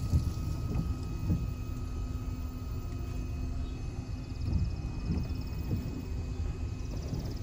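Low, uneven rumble of wind buffeting the microphone, surging about a second in and again around four and a half seconds in, over a faint steady hum.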